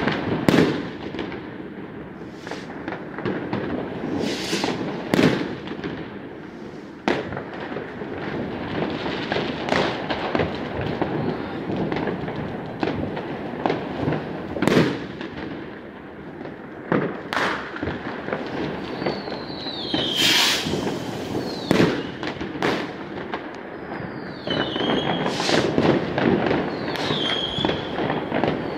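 New Year's Eve fireworks and firecrackers: many scattered bangs and pops over a steady crackle. In the second half there is a brief hiss and three falling whistles from whistling fireworks.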